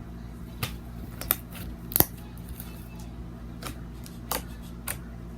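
Homemade slime being stretched and squeezed, giving off sharp popping clicks at irregular intervals, the loudest about two seconds in.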